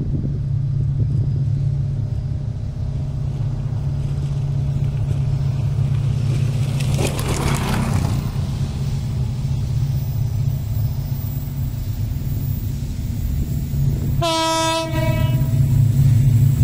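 Diesel locomotive hauling a coal train, approaching: a steady low engine drone that grows louder near the end, and one short horn blast, under a second long, about two seconds before the end.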